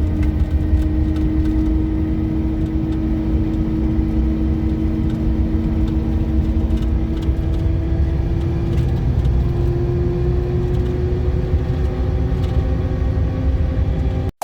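2007 Chevy Silverado driving, heard from inside the cab, with a steady whine from the rear differential over the road and engine noise; the whine edges slightly higher in pitch about two-thirds of the way through. The differential ran low on gear oil through a leaking pinion seal, and the whine is still there after topping it off.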